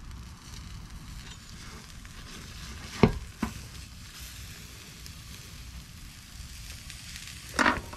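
Food sizzling steadily in a very hot cast iron potato cooker as a burnt omelette is scraped out with a serving spoon. Two sharp knocks of the spoon against the cast iron come about three seconds in, and a short sharp sound follows near the end.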